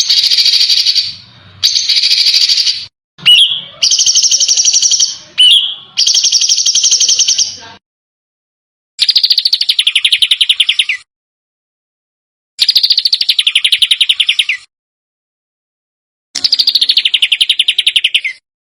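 A small songbird giving harsh, rapid rattling trills in bursts of about two seconds, with short silent pauses between them. A couple of quick upward-sweeping notes fall between the bursts in the first half.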